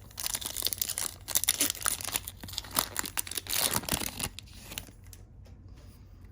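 Foil wrapper of a Donruss Optic Football hobby pack being torn open and crinkled for about four and a half seconds, then fainter rustling.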